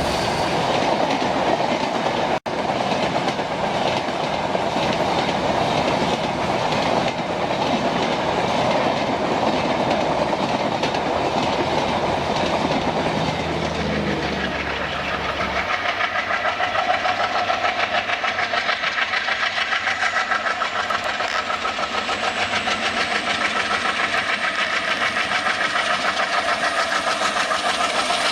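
A train running along the rails, its wheels clattering steadily over the track. Partway through the sound changes and the clatter settles into a regular beat, with a steady ringing tone over it.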